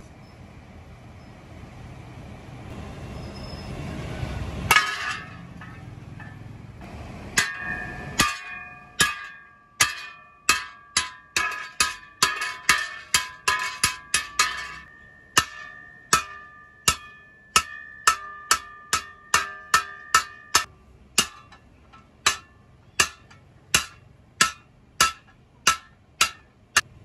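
Hand hammer striking a steel kasi (spade) blade laid on a steel anvil block: a long, even run of sharp metallic blows, about two a second, each ringing briefly. The blows begin several seconds in and slow a little near the end.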